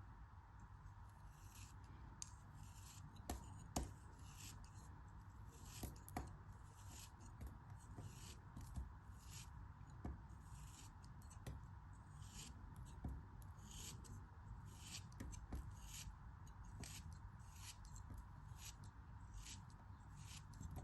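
Faint, repeated cutting strokes from a blade slicing a soft craft material, about one and a half strokes a second, with a few sharp clicks among them.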